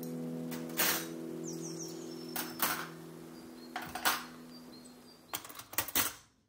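Stainless steel forks and spoons clinking as they are set into a plastic cutlery drawer tray, a series of separate clinks. Soft background music with held notes fades away near the end.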